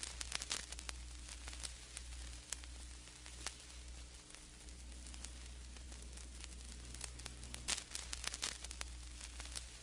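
Vinyl record surface noise from a turntable stylus in the groove: a steady crackle with scattered clicks and pops over a low hum, with one louder pop about three-quarters through, before any music has started.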